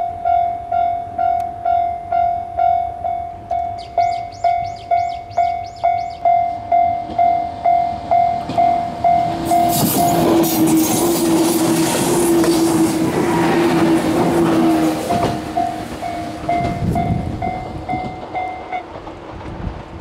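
Japanese level-crossing warning bell ringing in a steady, even ding, a little under two strokes a second. About ten seconds in, a red JR West 103-series electric train passes close by, and its loud wheel-and-rail noise and steady hum drown the bell for several seconds. The bell is heard again as the train moves away and stops near the end.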